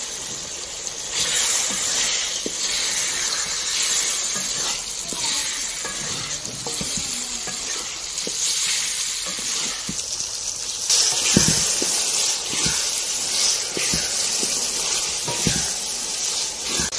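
Green peas sizzling in hot oil and tomato-onion masala in a metal pan while a wooden spatula stirs them. A few soft knocks come in the second half.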